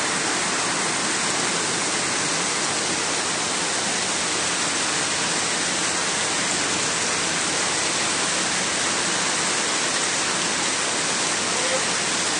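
Heavy rain falling steadily onto floodwater, an even, unbroken hiss.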